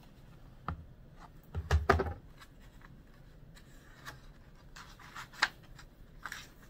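A children's picture book being handled: a bump as it is set down on the table about two seconds in, then its paper pages rustling and flicking as they are turned.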